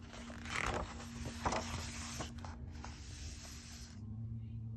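Paper pages of a book being turned by hand: a few seconds of rustling and sliding with a sharper crackle about one and a half seconds in, stopping near the end.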